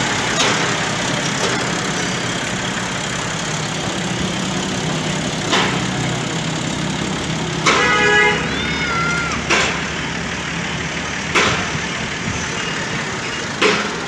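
Bull Power 565 Turbo tractor's diesel engine idling steadily, with sharp knocks about every two seconds. A short horn toot sounds about eight seconds in.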